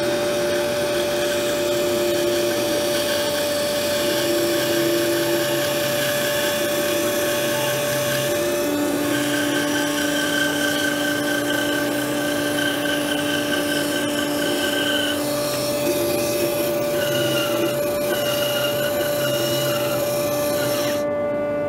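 Atika BS 205-2 benchtop bandsaw with a 250 W motor running under load, its blade cutting slowly through a 70 mm spruce block at full cutting height: a steady whine with shifting tones from the cut. Near the end the saw is switched off and its pitch falls as it runs down.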